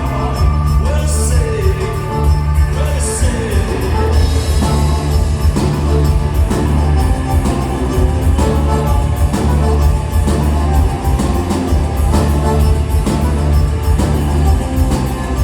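Live rock band playing with heavy bass and drums, and a voice singing in the first few seconds.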